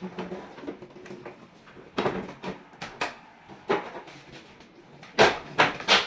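Irregular knocks and clatters, like things being handled and set down, with the loudest cluster of three sharp knocks near the end.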